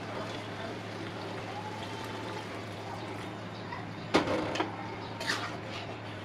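Khichuri simmering in a metal kadai on a gas burner, a steady hiss. About four seconds in, a metal spatula knocks against the kadai, then scrapes through the pot as it starts stirring.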